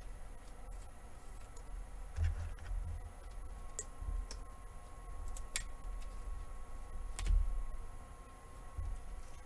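Trading cards and a clear plastic card sleeve being handled on a tabletop: scattered light clicks and taps, with a few soft low knocks, the biggest about seven seconds in.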